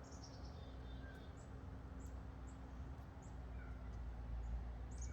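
Small birds chirping faintly now and then, short high falling chirps, over a steady low background hum.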